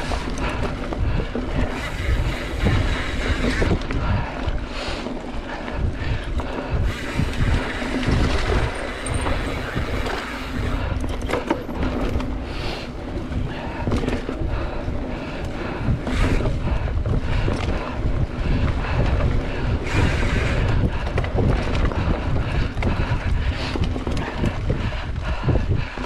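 Mountain bike ridden fast along a dirt trail: wind rushing over the microphone and the tyres' rumble, with frequent knocks and rattles from the bike over bumps.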